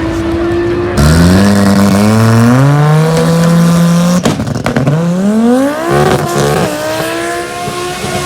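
Race car engine accelerating hard at full throttle. It cuts in loud about a second in and climbs steadily in pitch, breaks off briefly about four seconds in, then climbs again and levels off.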